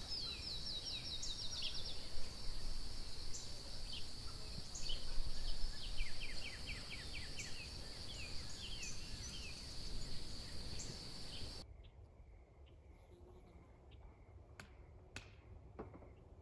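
Outdoor ambience of a steady high insect trill with birds chirping in quick descending runs. About twelve seconds in it cuts to a much quieter background with a few faint clicks.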